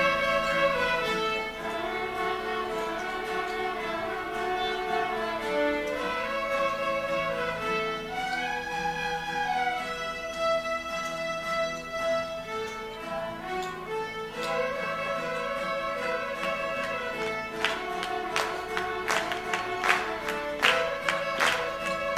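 A children's fiddle ensemble playing a Cajun two-step tune together on bowed fiddles, the melody running up and down in steady phrases. Near the end, sharp rhythmic strikes join the fiddles, about two or three a second.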